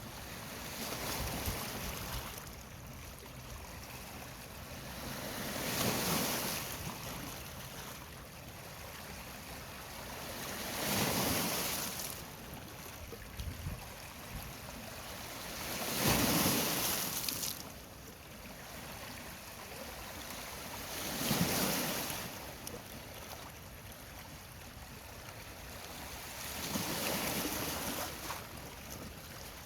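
Water washing in and splashing in six even swells, one about every five seconds, like small waves breaking, with a steady wash of water between them.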